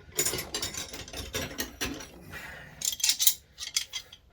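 Steel Bonney hand wrenches clinking and clattering against each other as they are handled: a quick run of metallic clicks in two flurries, the second about three seconds in.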